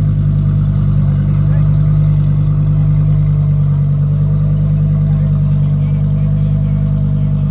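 Car engine running steadily without revving, a deep even hum.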